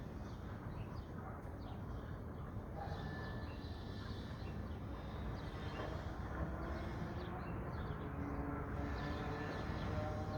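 Outdoor ambience: small birds chirping faintly and intermittently over a steady low rumble.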